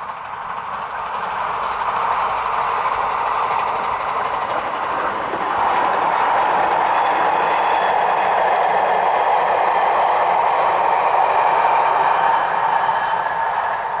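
JR 381 series 'Yakumo' limited express electric train passing, its wheels running on the rails. The noise builds over the first two seconds, grows louder again about six seconds in, and starts to fade near the end as the train draws away.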